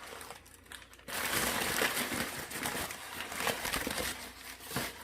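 Packing in an opened cardboard box being handled: crinkling and rustling with scattered clicks. It starts about a second in and dies down near the end.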